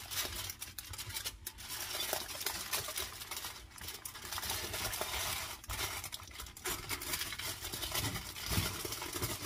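Aluminium foil crinkling and rustling as hands fold and roll it tightly around a log of dough, in irregular soft crackles.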